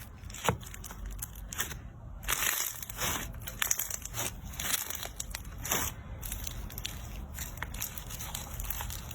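Slime being squished and pressed by hand, giving irregular crackling and crunching clicks with a few denser bursts.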